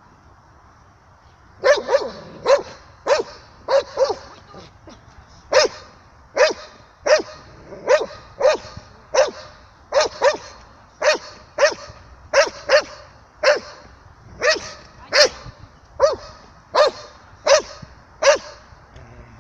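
Belgian Malinois barking, a long series of sharp barks about one every three-quarters of a second, starting about two seconds in with a short break a few seconds later. It is guard barking at a helper in a bite suit who has come close to its handler.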